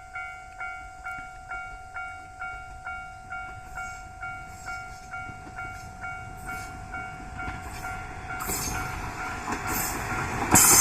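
Japanese level-crossing warning bell ringing, a steady electronic ding about twice a second. From about eight seconds in, the noise of the approaching train, the yellow railcar hauling the open trolley car, grows louder with clicks from the wheels and rail joints, and it drowns out the bell at the very end.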